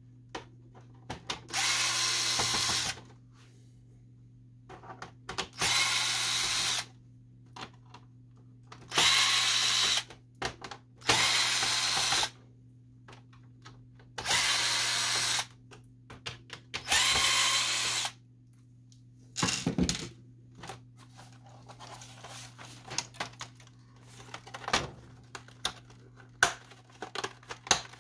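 Cordless drill-driver running in six short bursts of about a second each, backing out screws from the printer's plastic housing. After that, scattered clicks and knocks as the plastic parts are handled.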